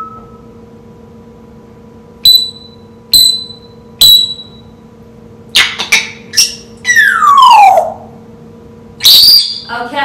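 African grey parrot imitating electronic beeps and whistling: three short ringing beeps about a second apart, then a run of whistles and squawks that includes a long whistle sliding down in pitch, and a loud call near the end.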